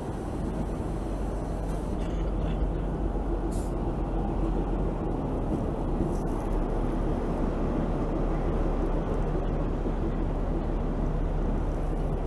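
Narrow-gauge passenger train running steadily: a continuous rumble of the coach's wheels on the rails with a low hum underneath, heard from an open coach window.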